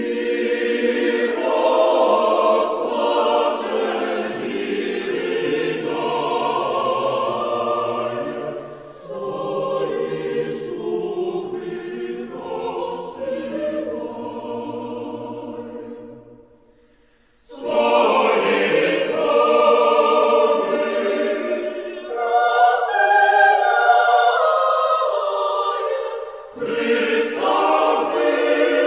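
A choir singing slow, sustained phrases in several voices, breaking off briefly about two-thirds of the way through and again shortly before the end.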